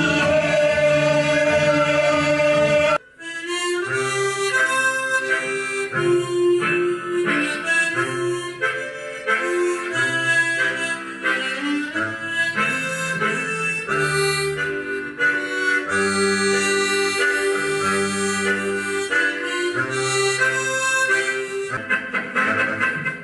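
Instrumental music: a held chord breaks off about three seconds in, then a new passage starts with a melody moving over a bass line.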